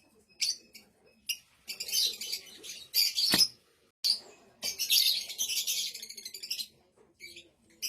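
Blue Fischer's lovebird chirping and chattering in shrill, high-pitched bursts. There are short single chirps, and two longer runs of rapid chatter, one about two seconds in and one about five seconds in.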